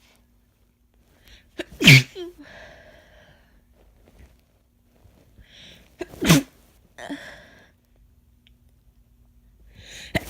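A woman with a head cold sneezing forcefully twice, about four seconds apart, each sneeze followed by breathy, noisy breaths. A third sneeze starts right at the end. The sneezes are induced, and they are messy.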